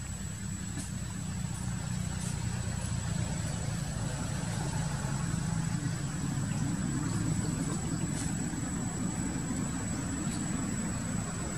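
A steady low engine hum, like a motor vehicle idling, growing slightly louder after about two seconds, with a faint steady high-pitched whine over it.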